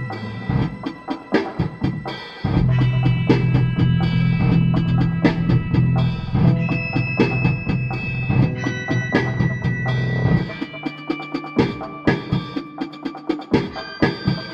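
Instrumental music: a drum kit keeps a steady beat under electric guitar, with a held low bass note through much of the middle.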